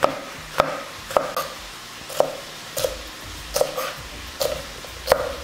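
Kitchen knife dicing a sweet pepper on a plastic cutting board: a steady series of sharp chops, about one every two-thirds of a second.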